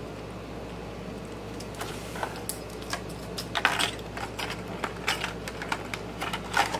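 Irregular light clicks and rattles of a hard plastic crankbait being handled, its treble hooks and split rings tapping against the lure body, starting about two seconds in.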